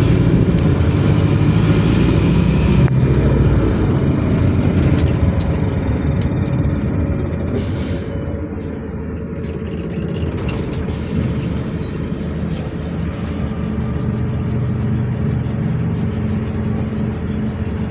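City bus engine running with cabin rumble, heard from inside as the bus slows and pulls into a stop. There are scattered clicks in the middle and a brief wavering high squeal about twelve seconds in.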